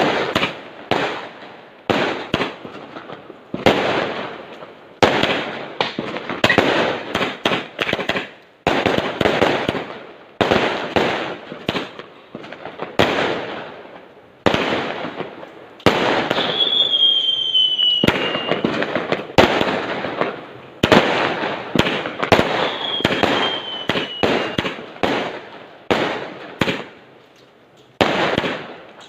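Fireworks going off in quick succession, about one bang a second, each trailing off. Two falling whistles are heard in the second half.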